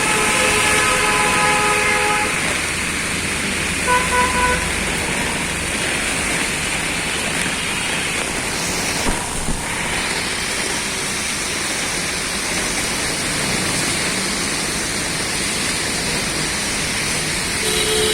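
Vehicle horns honking over steady traffic hiss. There is one honk of about two seconds at the start, then a few short toots about four seconds in.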